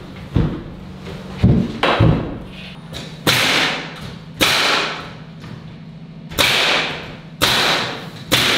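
Pneumatic nail gun firing fasteners into plywood wall sheathing: a series of sharp shots about a second apart, the later ones each followed by a short hiss of exhaust air.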